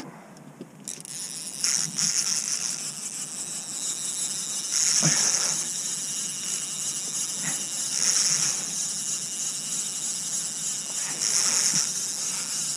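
Sturgeon rod's fishing reel buzzing as a hooked fish is played, a steady high whirr that swells louder about every three seconds.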